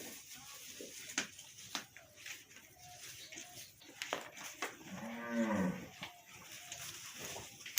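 A cow mooing once, a single call of about a second about five seconds in, its pitch falling at the end.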